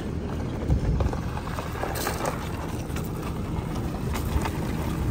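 Wheels and footsteps crunching on gravel over a low, steady rumble, with scattered small clicks.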